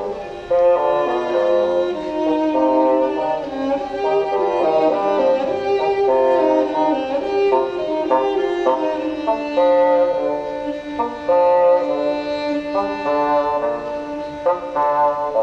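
Live chamber ensemble music led by bowed strings, with violin to the fore, playing a quick run of short notes over sustained lower parts.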